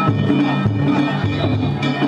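Danjiri festival music from the float's band: drums and bells played in a steady rhythm, with high steady tones over them.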